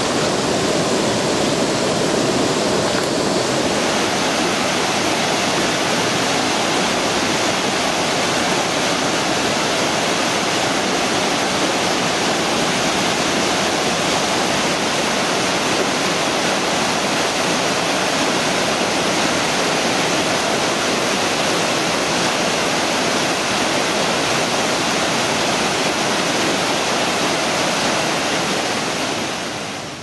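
Steady rush of white water pouring over a concrete weir. It fades out near the end.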